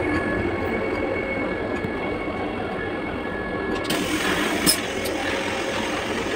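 Steady running noise of a moving Vande Bharat train heard inside its toilet cubicle. About four seconds in, the flush button is pressed and the toilet flush hisses for about a second, with a sharp click near its peak.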